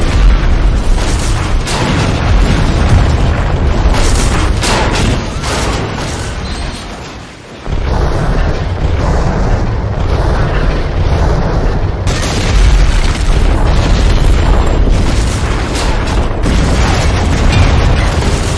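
Loud booming blasts of explosions, one after another, heavy in the low end, with a brief lull about seven seconds in before they resume abruptly.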